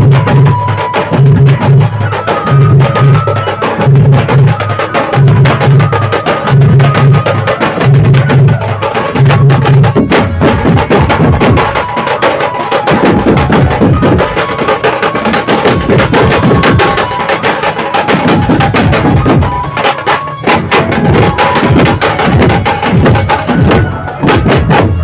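Dhumal band playing live: drums beaten in a fast, dense rhythm under a melody of held notes. For about the first ten seconds a deep bass note pulses roughly once a second, then the drumming thickens into a steady stream of strokes.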